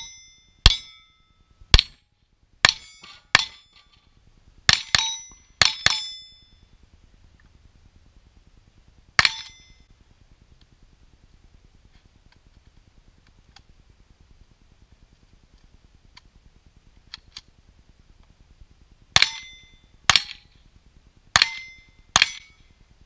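Rifle shots at steel targets, each crack followed by the ring of the struck steel plate. About ten come in quick succession over the first six seconds, a single one follows a few seconds later, and near the end four more come about a second apart.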